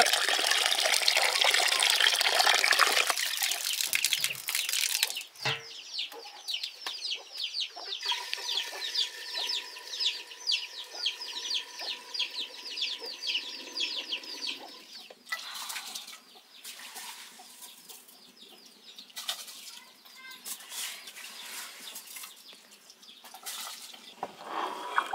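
Tap water running hard into an aluminium pot of rice being rinsed, stopping about three seconds in. From about five seconds, a bird calls in a fast, even run of short falling chirps for some ten seconds, followed by a few faint knocks.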